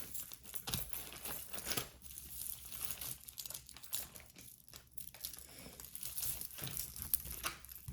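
Packaging crinkling and rustling in irregular small crackles as a batch of jewelry is pulled out by hand.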